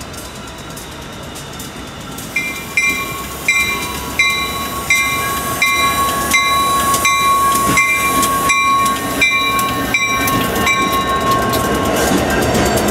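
EMD SD60M diesel locomotives passing close by on a freight train, their engines and wheels growing louder as the units go by. A locomotive bell rings about three strikes every two seconds from a couple of seconds in until near the end.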